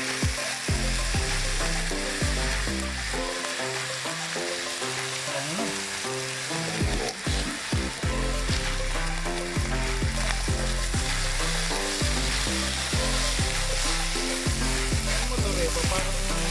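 Minced meat sizzling as it fries in a nonstick pan, stirred with a wooden spatula. Background music with a steady beat plays underneath.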